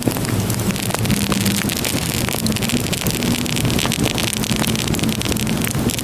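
Wood fire crackling in a fireplace, with frequent small sharp crackles, over a steady rushing hiss of snowstorm wind.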